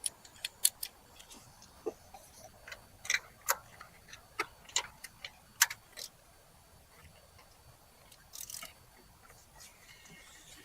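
Irregular sharp clicks and taps over the first several seconds, then a brief rustle or scrape later on.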